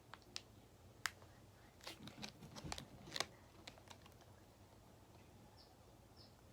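Faint, scattered clicks and taps, bunched together about two to three seconds in: small toy packages being handled.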